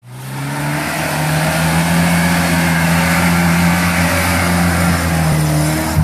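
Lada Niva's engine working hard at high, fairly steady revs as the 4x4 pushes through deep muddy ruts, with a steady hiss over the engine note.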